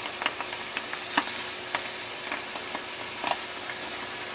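Flour-coated yellow perch fillets deep-frying in a saucepan of hot oil: a steady sizzle with scattered crackles and pops.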